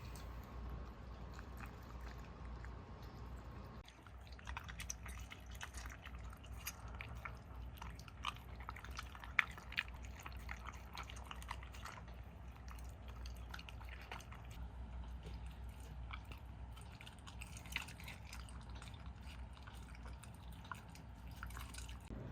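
A dog eating a raw meat meal: faint, wet chewing and licking, with many small irregular clicks and smacks starting about four seconds in, over a low steady hum.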